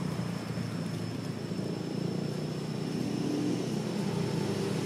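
Steady outdoor background rumble, low and even, with a thin high steady whine above it.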